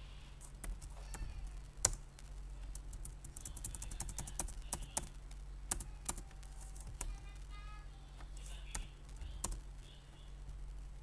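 Typing on a computer keyboard: irregular, scattered key clicks over a steady low hum.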